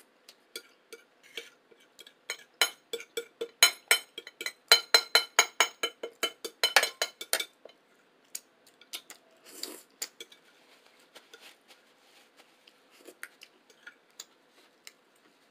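Metal cutlery on a plate, clinking in a quick run of ringing taps, about four or five a second, for around five seconds, then fewer and softer clicks.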